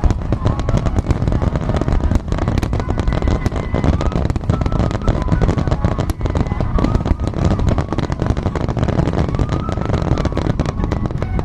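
Aerial fireworks going off in quick succession: a dense run of sharp bangs and crackles over a continuous low rumble of booms.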